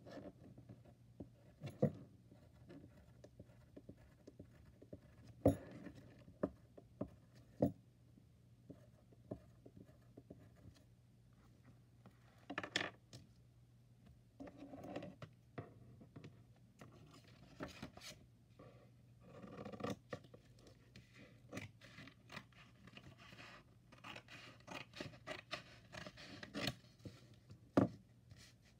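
Hands handling sheets of craft paper on a wooden desk: card sliding and rustling, scratchy strokes and scraping, with scattered light taps and knocks on the tabletop. The scratchy stretches come in short patches, more of them in the second half.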